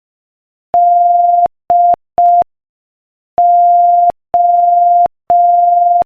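Morse code sent as a steady sine-like beep at 5 words per minute: one long and two short tones (the letter D), a pause, then three long tones (the letter O).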